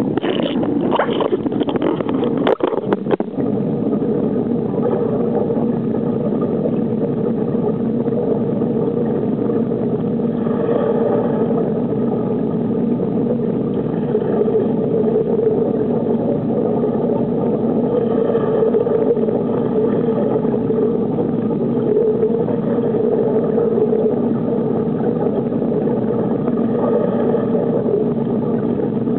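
A steady engine drone runs throughout, with a few sharp knocks in the first three seconds.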